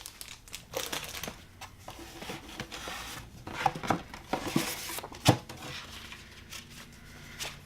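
Packaging handled and opened by hand: irregular rustling, crinkling and scraping, with a few sharper clicks.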